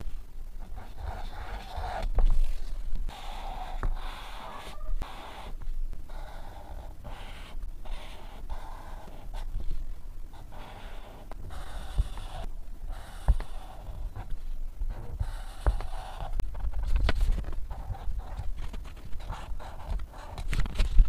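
Black felt-tip marker drawing on paper: scratchy strokes that come and go in short runs with brief pauses between them, and a few light knocks against the desk.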